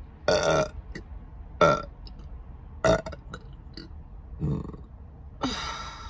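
A woman burping about five times, the three loudest within the first three seconds and a longer, breathier one near the end, brought up by gulping a large carbonated soda that she says is bloating her stomach.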